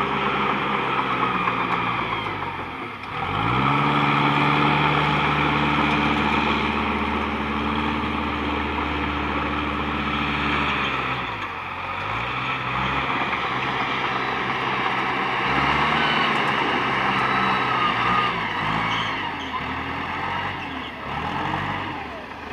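Komatsu PC200 hydraulic excavator working, its diesel engine running loudly. The engine speeds up about three seconds in and holds under load for several seconds, drops back near the middle, then keeps rising and falling as the machine works.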